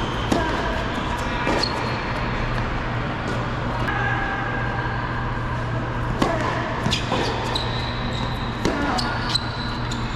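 Tennis ball struck by rackets and bouncing on a hard indoor court, echoing in the hall: a serve just after the start, another about six seconds in, then a quick run of hits and bounces in the rally. Under it runs a steady low hum.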